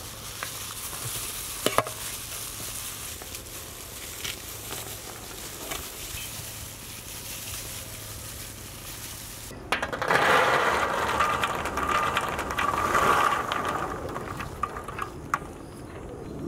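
Crackling and pattering of pomegranate seeds being broken out of halved fruit by hand and dropping into a large aluminium tray, with small clicks throughout. It turns abruptly louder and denser about ten seconds in.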